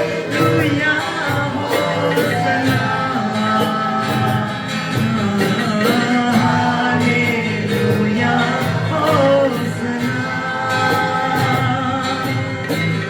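Live worship band music: a voice singing a wavering melody over sustained keyboard-like chords and a steady cymbal beat.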